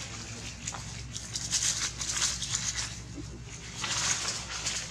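Dry fallen leaves rustling and crunching in uneven spells as young macaques scuffle and play-fight over the leaf litter, loudest about a second in and again near the end.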